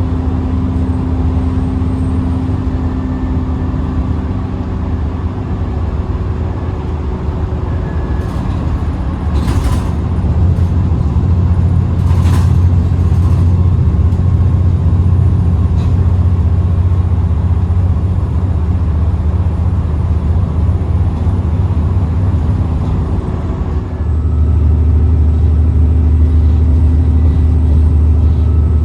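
ADL Enviro 400 double-decker bus's diesel engine running under way, with a thin, high, steady turbo whistle over it. The engine grows louder about ten seconds in and again near the end, and there are a couple of brief clicks.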